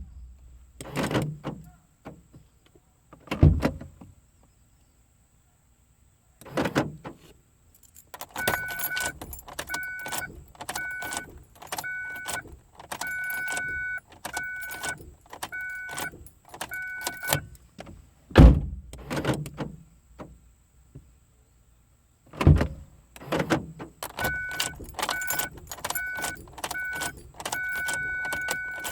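Ford Focus being cycled through a key-remote programming sequence: car doors shut with heavy thuds a few times, and the ignition key jangles on its ring as it is turned. The car's warning chime beeps over and over, a little more than once a second, in two runs, the second starting a few seconds after the last thud.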